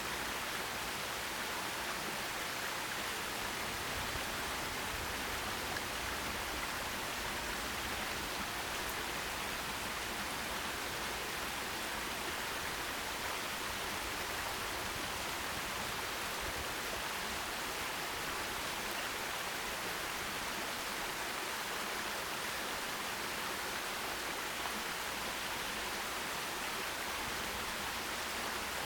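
Forest stream with water running steadily over rocks: an even, unbroken rushing.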